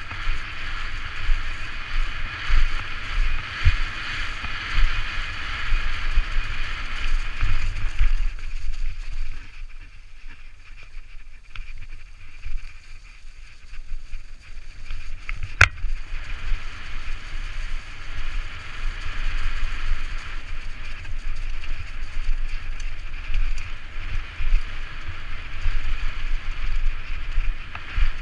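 Propain Tyee enduro mountain bike rolling fast down a forest trail: a steady rumble and rattle with wind rushing over the helmet camera's microphone. A quieter stretch comes a third of the way in, then one sharp click, and the noise builds back up.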